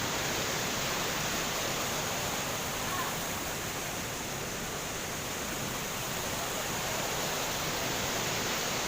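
Waterfall's rushing water: a steady, unbroken roar of falling water.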